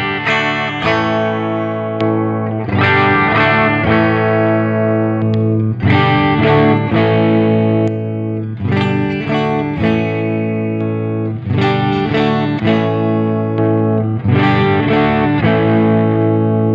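Harley Benton Fusion II electric guitar played through an Axe-Fx III Fender Bassman amp model, with chords strummed about every three seconds and left to ring.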